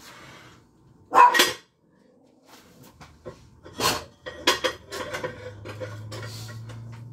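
A dog barks, a loud double bark about a second in, then dishes clatter at a kitchen sink with sharp knocks and clicks. A low steady hum sets in near the end.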